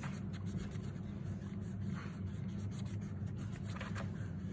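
Quick repeated scratchy strokes of a mini pencil and a small donut-shaped eraser on a little journal's paper page, as a small heart is drawn and rubbed out. A steady low hum runs underneath.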